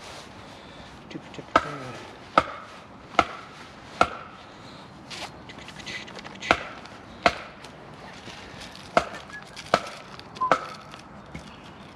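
Wood being chopped with sharp, evenly spaced blows, about one every 0.8 seconds in runs of two to four, some with a short ring after the strike.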